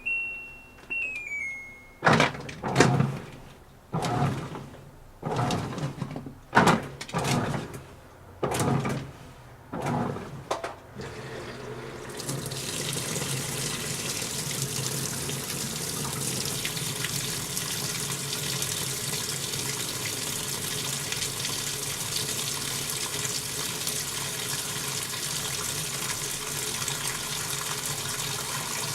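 Washing machine starting a cycle: a short electronic beep tune, then about eight surges of water sloshing, then a steady rush of water filling the drum over a low motor hum.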